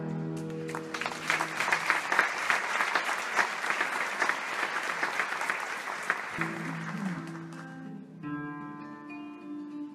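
Audience applauding as a held chord dies away, the clapping dense for several seconds. About six seconds in, acoustic guitars start a new piece and the applause fades under them.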